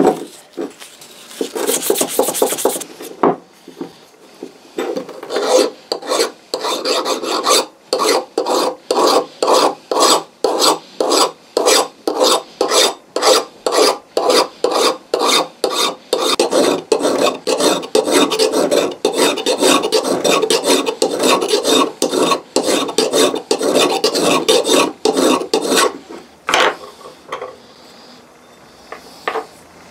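A hand file is pushed in steady, separate strokes across a small steel axe head to smooth it, about two strokes a second. Shortly before the filing starts there is a brief scratchy rub of abrasive paper.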